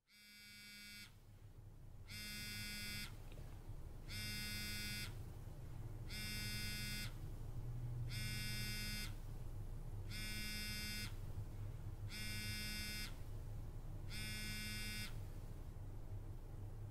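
Smartphone vibrating against a table for an incoming call: eight buzzes, each about a second long and about two seconds apart. It stops near the end, the call going unanswered.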